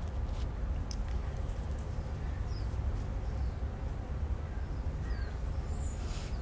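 Outdoor background with a steady low rumble and a few faint, short bird chirps scattered through it.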